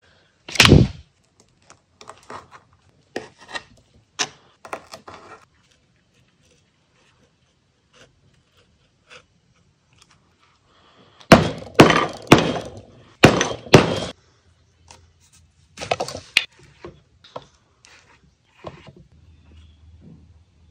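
Leatherworking handling sounds on a cutting mat over a wooden bench: a loud thump near the start, then scattered knocks and scrapes of leather and tools being handled, loudest in a cluster of sharp sounds about halfway through, when a knife is cutting the leather.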